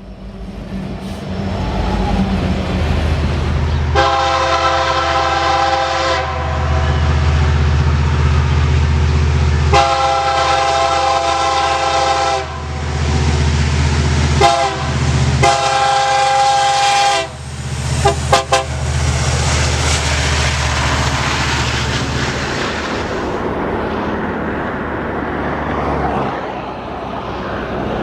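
A locomotive horn sounding a chord of several notes over the low rumble of a passing train, in the pattern long, long, short, long: the standard grade-crossing signal. A few quick short toots follow, then the rushing noise of the train going by fades out.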